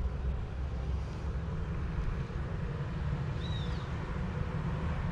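Wind buffeting the microphone in an irregular low rumble, with a single short, high bird chirp about three and a half seconds in.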